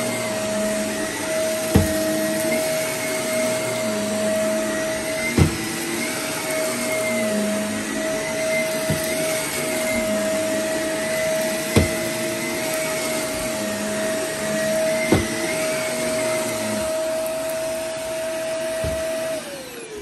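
Shark upright vacuum cleaner running on carpet, with a steady motor whine and a short knock every three to four seconds. Near the end it is switched off, and the motor winds down with a falling pitch.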